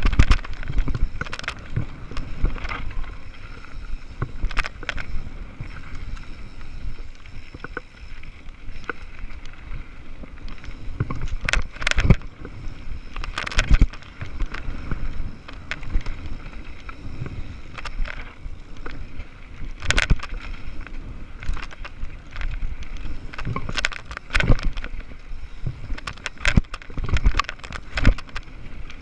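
Mountain bike riding fast down a dirt singletrack: a steady rumble of tyres on dirt and rushing air, broken by frequent sharp knocks and rattles as the bike goes over bumps.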